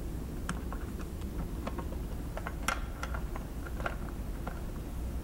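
Irregular small clicks and taps of a plug-in cellular communicator circuit board being handled and seated onto an alarm panel's pin connector, over a steady low hum.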